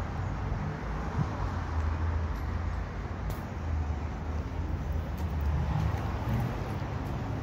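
Steady low rumble and hiss of urban outdoor background noise, with a few faint clicks.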